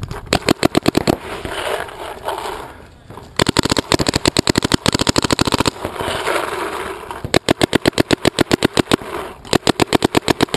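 Shocker RSX electronic paintball marker firing rapid strings of shots, about ten a second, in several bursts with short pauses between them.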